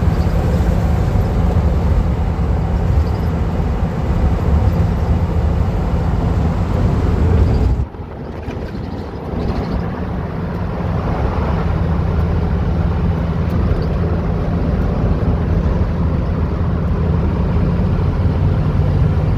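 Van driving on the highway: a steady low drone of engine and road noise. About eight seconds in it drops off suddenly, then builds back up over the next few seconds.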